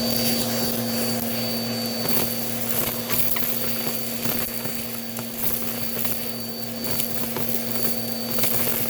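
Bissell vacuum cleaner running steadily, its motor giving a constant hum with a thin high whine over a rushing airflow, with a few faint ticks from the brushroll.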